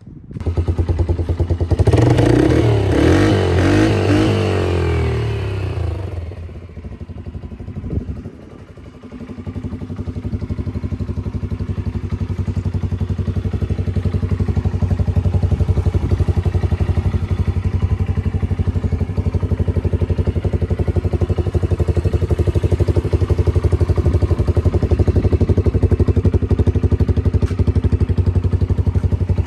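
Polaris Outlaw 90 youth ATV's engine revving for several seconds, its pitch rising and falling. It drops away about six seconds in, then comes back and runs steadily from about nine seconds on.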